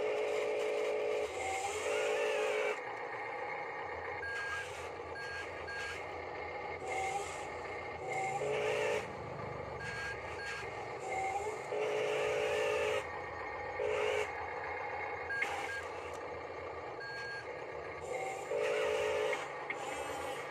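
Electronic reversing beeps from an RC construction model's sound module, sounding in bursts of about a second several times, over the steady whine of a toy wheel loader's small electric motors and gears as it drives.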